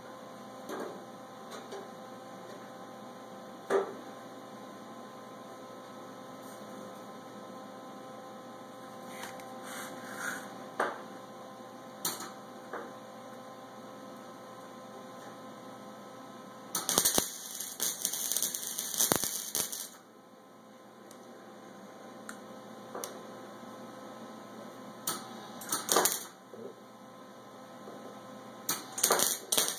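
Steady electrical hum with a few clicks of handling early on, then crackling bursts of a wire-feed (MIG) welding arc: one lasting about three seconds midway, and short ones again near the end as plug welds are laid into old spot-weld holes in sheet steel.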